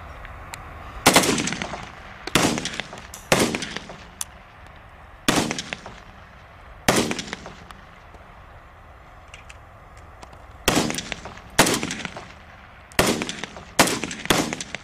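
Kalashnikov assault rifle firing single aimed shots, about nine in all, unevenly spaced with a pause of several seconds in the middle, each crack ringing off briefly. Fainter shots from elsewhere on the range come in between.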